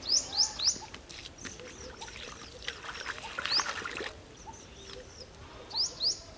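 A bird calling with short, sharp, rising notes: three in quick succession at the start, one about the middle and two near the end. A brief rustling scrape comes about three seconds in.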